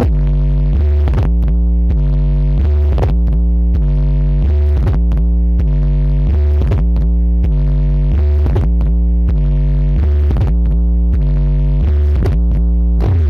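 Loud electronic dance music from a 'horeg' carnival sound system: a heavy, constant bass under a synth melody that steps from note to note.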